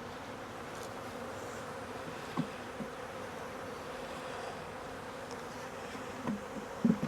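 Thousands of honeybees buzzing in a steady hum around a freshly opened nucleus colony box. A few brief soft thumps break through, the loudest near the end.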